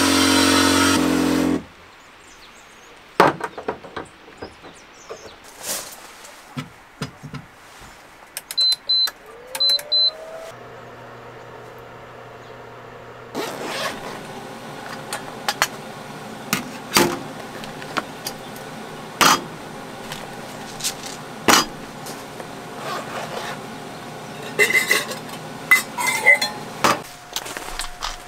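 Water spraying from a hose nozzle into a stainless steel kettle for about a second and a half. Then scattered clicks and knocks of handling, two pairs of short electronic beeps, a short rising tone settling into a steady low hum, and from about halfway on a steady noise under frequent sharp knocks and clatter.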